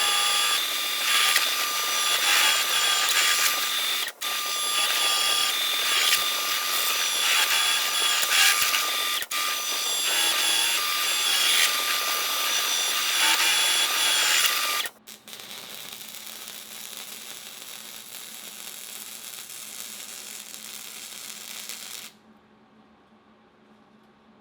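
Power tool working steel tubing with a loud, high metallic whine. It stops for a moment twice, cuts off about 15 seconds in, and is followed by a fainter steady hiss that ends a few seconds before the end.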